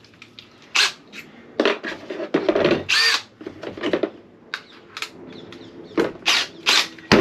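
Electric drill fitted with a hole-saw cutter, run in a series of short bursts of uneven length as it cuts.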